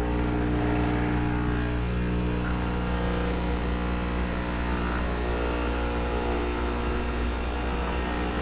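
Espresso machine's pump humming steadily while it pulls a shot of espresso.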